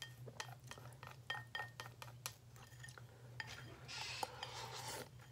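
Chopsticks clicking and scraping against a ceramic bowl in a string of light clinks. About four seconds in, the bowl is tipped to the mouth and a denser stretch of eating noise follows.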